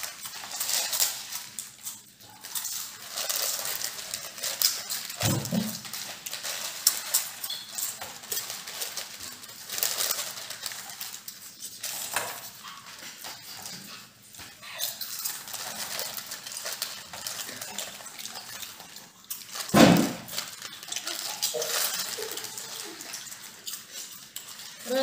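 Plastic potato chip packets crinkling and rustling in hands while chips are crunched and chewed, a steady crackle of small sharp sounds. A brief low sound comes about five seconds in and a louder, short low sound about twenty seconds in.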